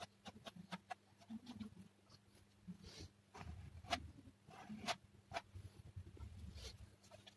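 Faint, irregular scraping and clicking of a plastic spatula spreading and combing thick texture paste across a painting board, with a few longer scratchy strokes.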